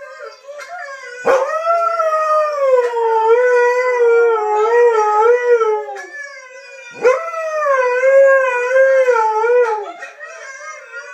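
Husky howling: two long, wavering howls, the first starting about a second in and lasting about five seconds, the second starting about seven seconds in and lasting about three. Fainter howling from huskies on a television carries on underneath and between them.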